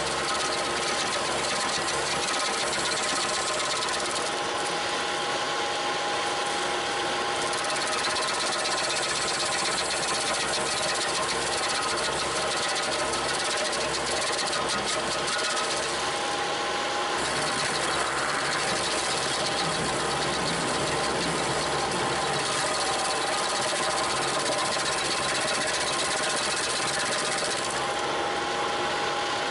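Bobcat T300 compact track loader's diesel engine running steadily under load, driving an SG60 stump grinder attachment, with an even whine of several steady tones.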